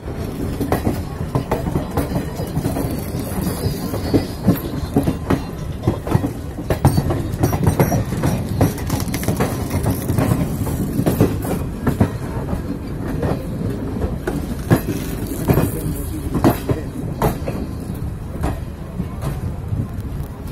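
Train coach's wheels and bogie running on the rails at close range: a steady rumble with repeated clacks as the wheels cross rail joints.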